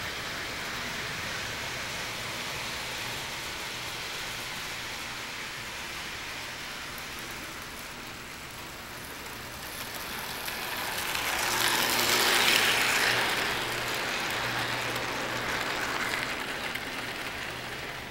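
O-scale model train running on three-rail track: a steady whir of its motor and gears with the rattle of its wheels on the rails. It grows loud as the train passes close by about twelve seconds in, then fades.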